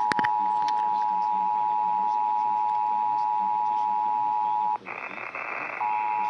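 Emergency Alert System attention signal, the steady dual-tone alarm, heard over a radio broadcast. It cuts out into hiss about four and a half seconds in and resumes a second later, with a couple of clicks at the very start.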